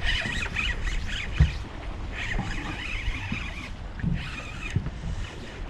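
Steady low rumble of wind and water aboard a small fishing boat, with a couple of short dull knocks, one about a second and a half in and another near the end.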